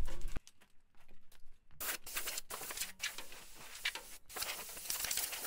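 Uneven rustling and scraping close to the microphone, with small clicks: clothing brushing against and handling the recording phone. It starts about two seconds in and cuts off abruptly at the end.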